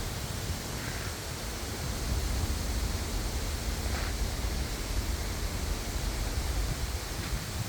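Wind blowing through poplar trees: a steady rushing hiss of leaves, with a fluctuating low rumble of wind buffeting the microphone.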